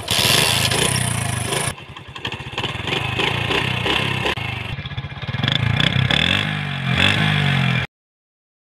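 Honda CD70's 72cc single-cylinder four-stroke engine kick-started, catching at once and running with a steady beat, then revved with a rising pitch as the bike pulls away. The sound cuts off suddenly near the end.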